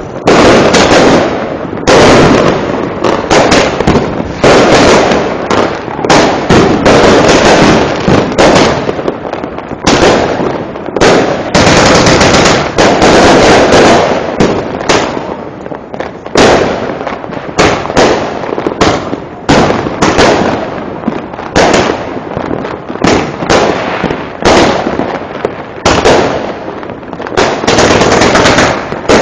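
Fireworks and firecrackers going off in dense, overlapping succession: loud sharp bangs several times a second over a continuous crackling haze, with no let-up.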